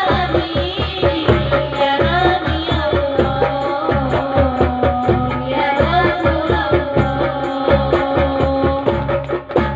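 Two women's voices singing an Islamic devotional song (sholawat) in Arabic into microphones, over a steady, busy percussion accompaniment.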